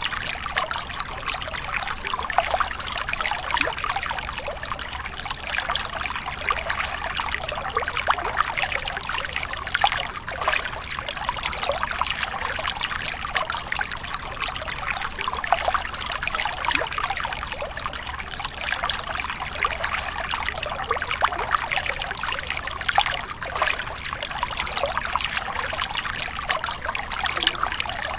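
A small stream of water trickling over mossy rocks into a shallow pool: a steady, unbroken splashing made of many small, quick drips and splashes.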